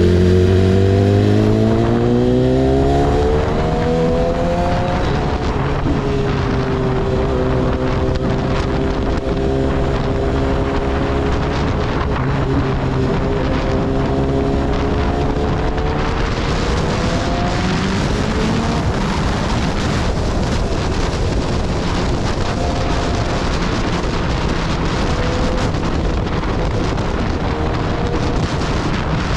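Motorcycle engine climbing in revs for the first few seconds as it accelerates, dropping in pitch at a shift, then holding a fairly steady cruise. Wind rush on the microphone grows stronger about halfway through.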